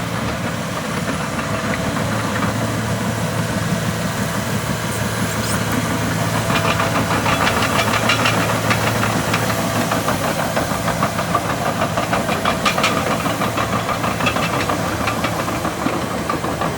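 John Deere 850J WT crawler dozer's six-cylinder 6090HT diesel engine running steadily. From about six seconds in, a rapid clatter joins it and the sound grows a little louder.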